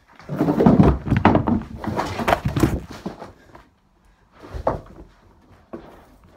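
Clothes and shoes being flung about and dropped on a carpeted floor: a dense jumble of thumps and rustling for the first three seconds, then a few scattered knocks and a single heavier thud about four and a half seconds in.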